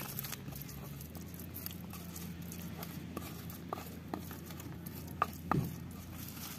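Light scattered clicks and taps of food and utensils being handled during a meal, with a sharper click and a short knock about five seconds in, over a low steady hum.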